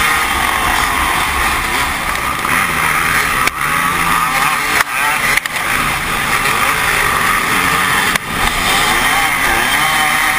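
Motocross bikes racing in a pack: the dirt bike engine nearest the camera revs up and down hard under acceleration, with other dirt bike engines around it. The loudness dips briefly a few times.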